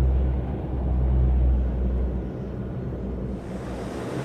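C-130 gunship's four turboprop engines running with a deep, steady drone. The drone drops away about two seconds in, leaving a softer rushing noise.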